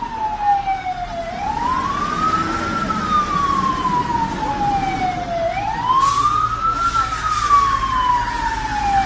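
Emergency vehicle siren in a slow wail: the pitch climbs quickly, then falls away over about three seconds, and the cycle repeats about twice, over a low rumble of road traffic.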